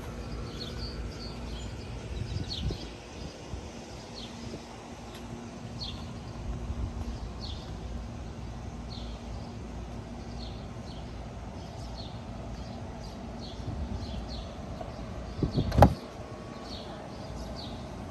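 Tesla driver's door opening with one loud, brief noise near the end, which the owner finds abnormal for this door after collision repair. Before it there is a low rumble, with short high chirps repeating about once a second.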